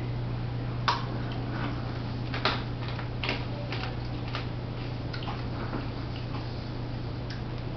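About a dozen light, irregularly spaced clicks and taps, the sharpest about a second in and at two and a half seconds, over a steady low hum.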